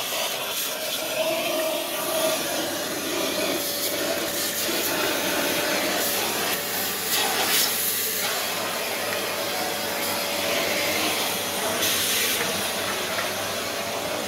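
Festool mobile dust extractor running steadily, its hose sucking fine dust out of the inside of a switched-off spindle moulder: a steady rush of air with a faint motor whine, and a few brief louder rushes about halfway through and near the end.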